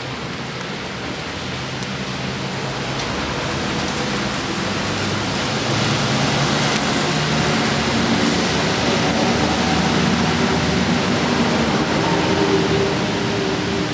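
A train running past on rails: a steady rumble with a low hum that grows louder over the first several seconds and then holds, with rain underneath.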